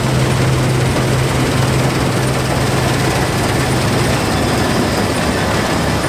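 New Holland CX820 combine harvester running as it cuts wheat: a loud, steady machine noise, with a low hum underneath that drops out about four seconds in.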